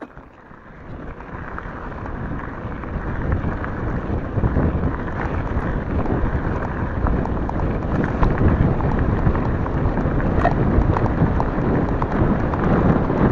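Wind rushing over the microphone and e-bike tyres rumbling on a gravel track as the bike picks up speed. The sound builds over the first couple of seconds into a steady loud rush, with small clicks from stones.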